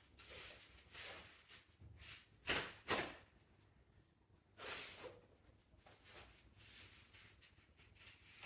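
Scattered handling noises in a small room: faint rustles and scrapes, with two sharp knocks about half a second apart near the middle and a longer scrape soon after.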